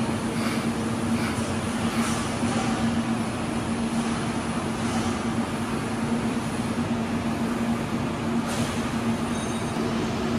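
Steady machinery noise: an even fan-like rush with a constant low hum.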